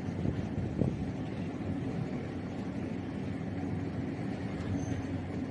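Steady low rumble of a train.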